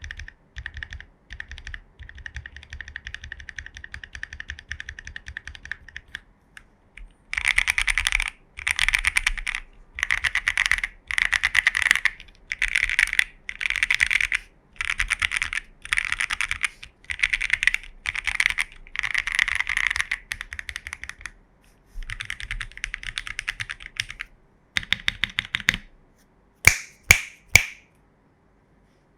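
Typing on a Fuji 75 mechanical keyboard with lubed, filmed Gateron Ink Box Black linear switches on a polycarbonate plate and CRP Greek keycaps. Lighter, steady typing for about six seconds gives way to louder bursts of roughly a second each, separated by short pauses. Near the end come three sharp, separate clacks.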